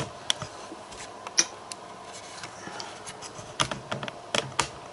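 Scattered light clicks and taps from small objects being handled, irregular, with a few sharper clicks about a second and a half in and again in the last second.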